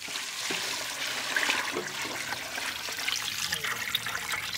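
Tamarind water poured in a thick, steady stream from a pot onto chopped raw stingray pieces in a large metal cooking pot, splashing as it lands.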